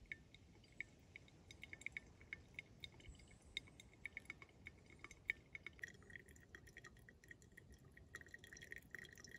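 Faint pour-over coffee brewing: a thin stream of hot water trickling onto coffee grounds in a paper filter, with many small, irregular drips into a glass server.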